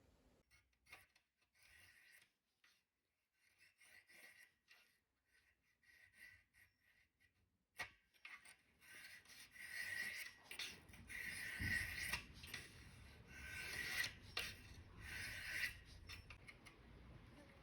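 Faint rasping, scraping strokes. They come sparsely at first, then after a sharp click about eight seconds in they grow louder and closer together.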